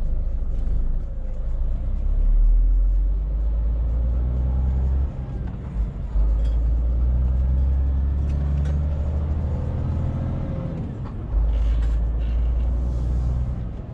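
Scania truck's engine and road noise heard from inside the cab while driving: a steady low drone, dipping briefly about five and eleven seconds in.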